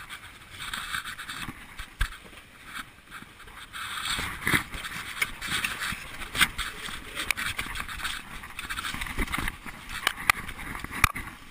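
Water rushing and splashing past the hull of a wooden GP14 sailing dinghy under way in choppy sea, a steady hiss broken by irregular sharp knocks and clicks from the boat's fittings and rigging.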